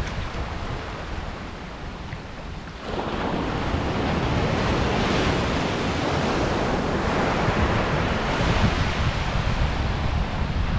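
Surf breaking and washing up a sandy beach, its rush swelling sharply about three seconds in, with wind rumbling on the microphone.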